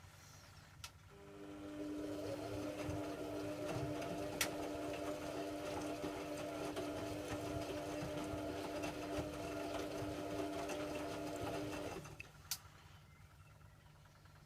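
Hoover Logic A3790 washing machine's drum motor turning the drum during the wash: a steady pitched hum that builds up about a second in and runs for about ten seconds before cutting off suddenly. A sharp click comes just before it starts and another just after it stops.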